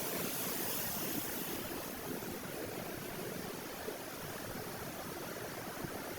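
Sea waves: a steady, even rushing of surf with no distinct breaks or splashes.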